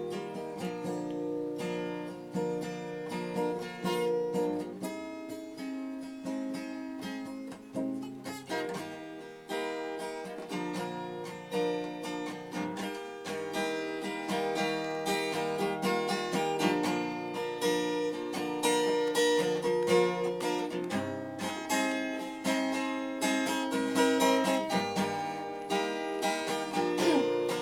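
Acoustic guitar strumming chords in an instrumental passage with no singing, growing slowly louder.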